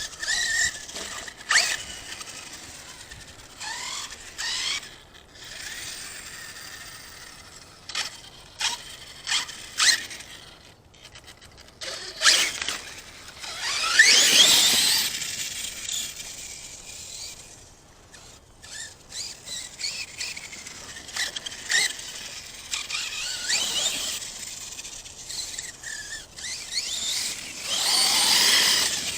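ARRMA Kraton 6S RC truck's brushless motor and drivetrain whining in bursts as it is driven on dirt. The whine rises sharply in pitch under hard acceleration about halfway through and again near the end, with scattered clicks and knocks in between.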